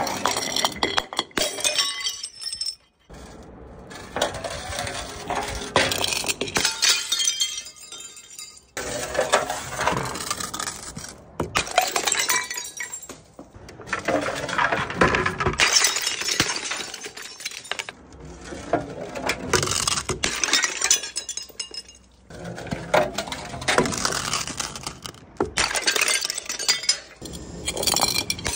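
Glass jars and bottles rolling down stone steps and smashing, with shards clinking and scattering. It comes in about six dense crashing spells of a few seconds each, with short quiet gaps between them.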